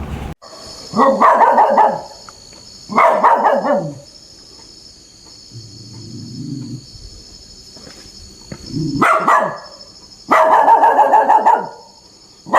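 A dog barking in four loud, drawn-out bursts of about a second each, two close together early on and two near the end.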